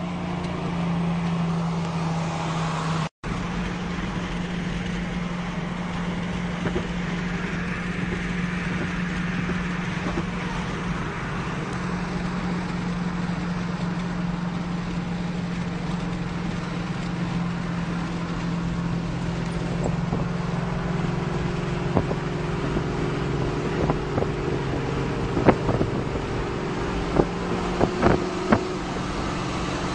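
Car engine droning steadily with road noise at highway speed. The sound cuts out for an instant about three seconds in, and several sharp knocks come in the last several seconds.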